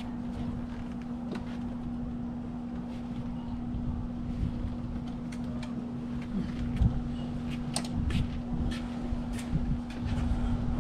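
An electric fan running with a steady hum, wind buffeting the microphone, and scattered light clicks and rustles from a boat cover being handled and fitted.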